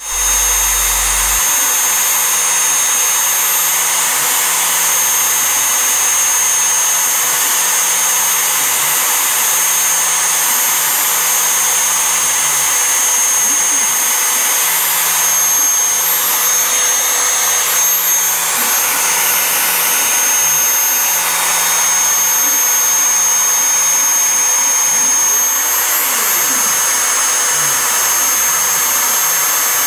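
CNC router's trim-router spindle running at high speed with a steady high whine as the bit cuts shallow grooves into a sheet. Underneath, the machine's stepper motors give a low hum that starts and stops every second or so as the gantry moves.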